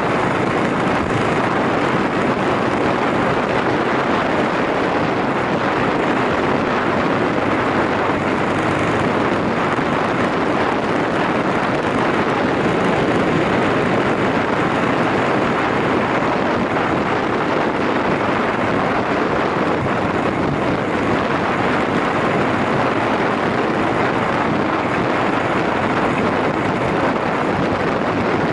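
Yamaha SRX400 motorcycle's single-cylinder engine running at a steady cruise under heavy wind rush over the microphone, with no change in speed or gear.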